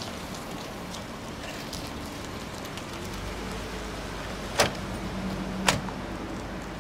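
The double side doors of a Ford van being shut one after the other: two sharp slams about a second apart.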